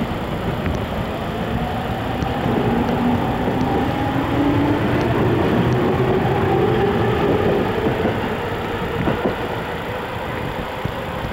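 Electric commuter train accelerating, its motor whine climbing steadily in pitch over a low rumble of wheels on rail, loudest midway and then easing.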